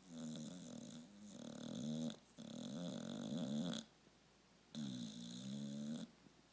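A pet snoring: a run of loud snores, each one to two seconds long with a short pause between, their pitch wavering through each breath.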